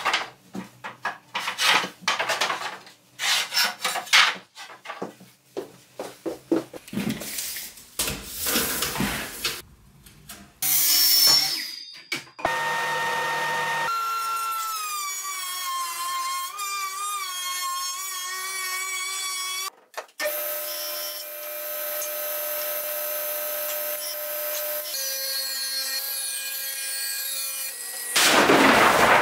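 Wooden boards knocking and clattering as lumber is pulled from a wall rack. Then a benchtop thickness planer runs steadily, its motor pitch wavering. Near the end there is a short loud burst as a table saw cuts a board.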